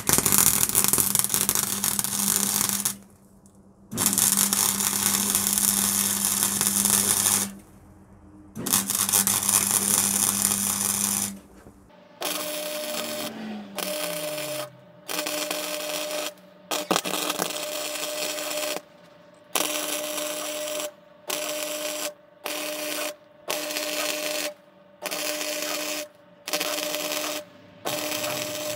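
MIG welding arc crackling in stop-start runs as weld is laid on the worn kingpin eye of a Citroën 2CV front suspension arm, to shrink the hole so the kingpin fits snugly. Three longer runs of a few seconds come first, then a string of short runs of about a second each with brief pauses, with a low hum from the welder under the early runs.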